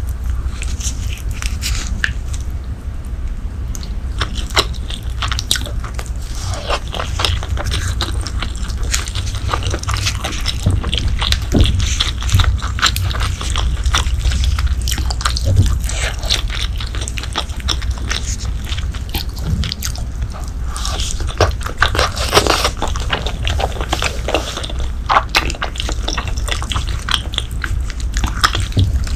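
Close-miked mouth sounds of someone eating braised pork leg: irregular biting and chewing clicks and smacks, over a steady low hum.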